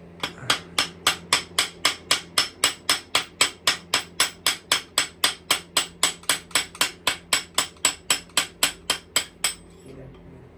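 A hammer striking metal in a steady run of about four blows a second, knocking at a tight bolt on a Yamaha YZ125. The blows stop shortly before the end.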